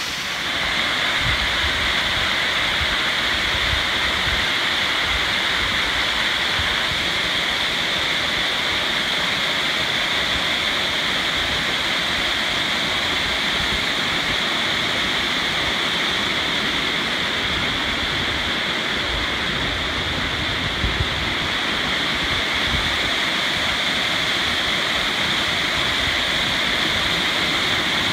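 Fairy Falls, a small fan-shaped waterfall, pouring steadily onto rocks with the creek rushing below it: a constant, even rush of water.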